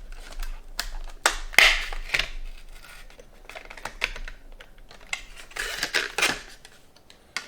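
Boxed CPU and its plastic packaging being handled: a run of light clicks and taps with a few rustling swishes.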